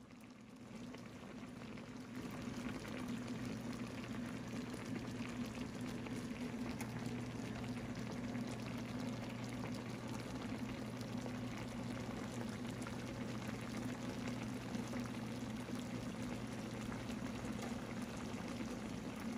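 Coconut-milk sauce simmering in a pan of fish and vegetables, bubbling steadily with many small pops, over a steady low hum. The bubbling grows louder over the first couple of seconds, then holds.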